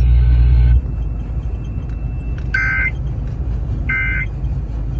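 Emergency Alert System end-of-message data burst over FM radio: short two-pitch warbling digital squawks, repeated about a second and a half apart, over radio background noise. These are the SAME 'NNNN' codes that close the severe thunderstorm warning. A louder steady hum cuts out under a second in, before the first burst.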